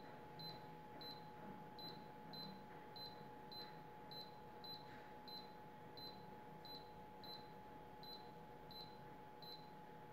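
Canon imageRUNNER Advance touchscreen control panel giving a short, faint, high beep at each press of the on-screen arrow key: about sixteen beeps, a little under two a second. A faint steady hum runs underneath.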